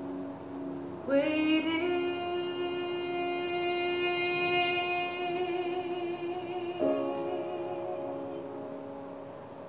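A woman sings a long final note with vibrato over a held accompaniment chord. The voice slides up into the note about a second in and stops about seven seconds in, leaving the chord fading.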